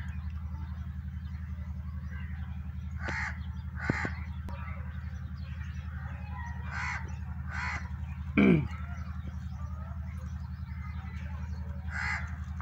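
Crows cawing, about five short caws spread out over a steady low hum. A short, loud falling cry, like a voice, comes about eight seconds in.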